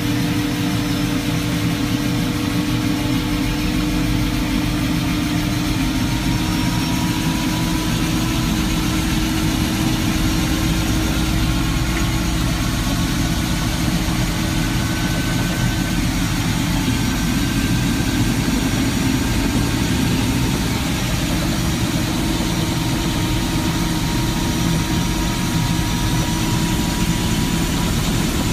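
Helicopter in flight heard from inside the cockpit: a steady, loud engine and rotor drone with a constant hum.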